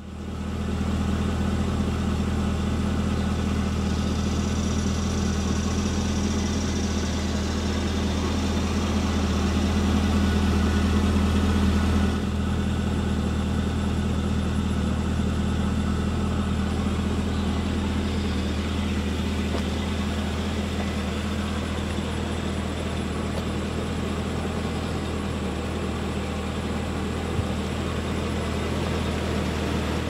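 The supercharged 6.2-litre LSA V8 of a 2015 Cadillac CTS-V Coupe idling steadily with a low hum. It grows a little louder, then settles back abruptly about twelve seconds in.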